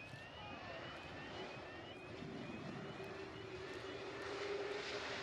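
Jet engines of an RCAF CC-150T Polaris, an Airbus A310 tanker, on landing approach: a faint, steady turbine whine and rush with a thin hum, growing slightly louder toward the end.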